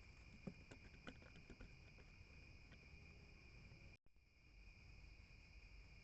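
Crickets chirring in a steady night insect chorus, with a few faint clicks and taps in the first three seconds. The sound cuts out for a moment about four seconds in.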